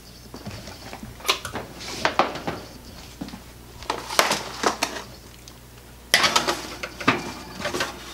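An oven door opening and a foil-lined metal baking pan being set onto the wire oven rack: a series of separate clanks and rattles, busiest about six to eight seconds in.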